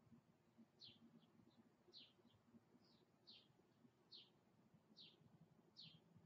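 A faint bird repeating one short, downward-sliding chirp about once a second, over otherwise near silence.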